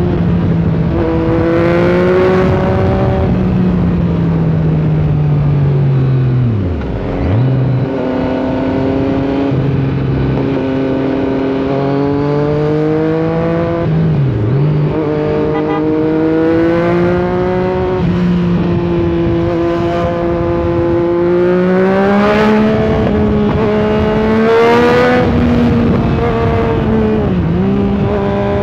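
Yamaha MT-09's inline three-cylinder engine under way, its note climbing under throttle and dropping sharply at each shift or throttle close, several times over. It revs highest and loudest a little past twenty seconds in.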